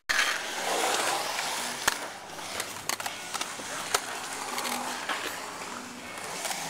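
Skateboard wheels rolling on a concrete bowl, a steady rolling rumble broken by about three sharp clacks of the board hitting the concrete.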